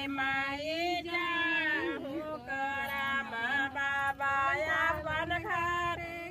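Women's voices singing a Karma folk song (karma geet), a melody of long held notes that slide between pitches.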